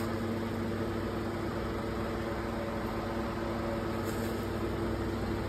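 Steady machine hum: a low drone with a few held tones, running without change. It is typical of motor-driven bakery equipment or a fan running nearby.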